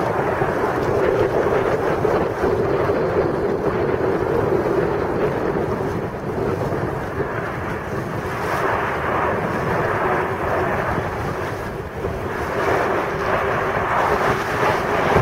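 Steady jet engine noise from the Frecce Tricolori's formation of Aermacchi MB-339 jet trainers passing overhead, easing slightly in the middle and swelling again near the end, with wind rumbling on the microphone.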